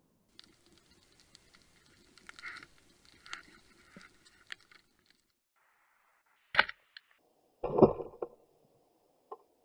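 Underwater, faint scattered clicking, then a sharp snap about six and a half seconds in and a louder thump a second later: a Matador 76 speargun being fired.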